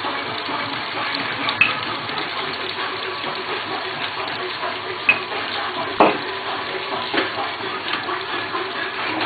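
Steady hiss of a chapati cooking on a hot pan, with a few light knocks as the next piece of dough is rolled out on a floured counter.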